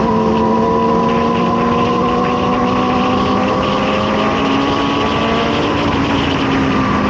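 Several sport motorcycle engines running steadily at slightly different pitches over a constant rush of noise.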